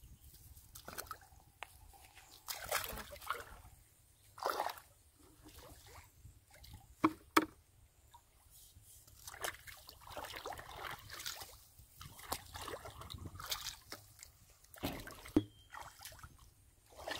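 Shallow muddy water sloshing and splashing as someone wades through it and works it with a bucket, in irregular bursts. Two sharp knocks stand out about seven seconds in.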